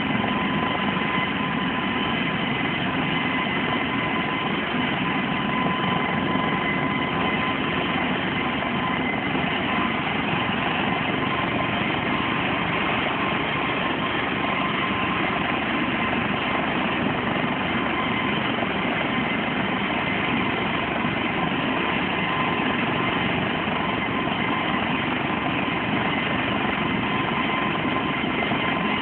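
Helicopter running steadily: a loud, even rush of engine and rotor noise with a thin steady whine on top.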